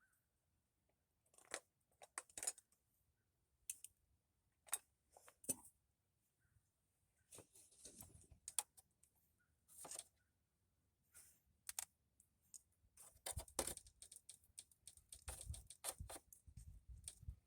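Faint, irregular small clicks and taps of hand tools and parts being handled during work on a scooter, with short gaps between them; they come more often in the last few seconds.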